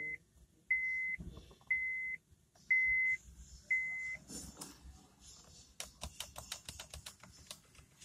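Honda Accord's dashboard warning chime, a steady high beep about once a second, four times, then it stops. Near the end comes a run of quick plastic clicks from the driver's door power-window switch being pressed, with no window motor heard: the front window isn't working.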